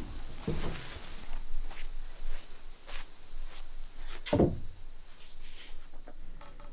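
Quiet scattered footsteps and knocks, with one louder thud a little over four seconds in.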